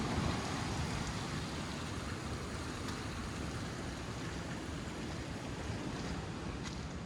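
Ocean surf and wind: a steady rushing wash with a low rumble underneath.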